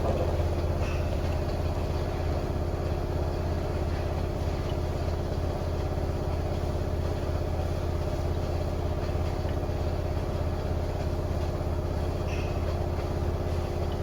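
Front-loading washer-dryer combo spinning its drum at top spin speed, a steady, even machine hum with no change in pitch or level.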